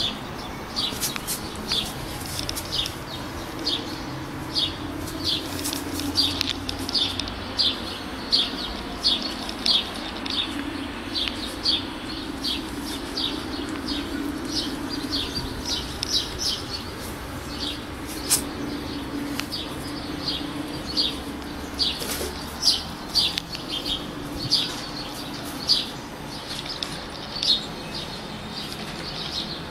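High-pitched chirping from a small animal: short chirps repeated about twice a second, over a faint low hum.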